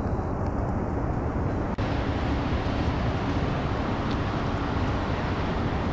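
Steady city street traffic noise, a dense low rumble of vehicles, with a brief dropout just under two seconds in.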